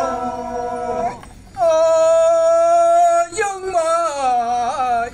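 Voices singing a traditional Phom Naga chant in long drawn-out notes: a short phrase, a brief break about a second in, one note held steady for about a second and a half, then notes that waver and slide downward near the end.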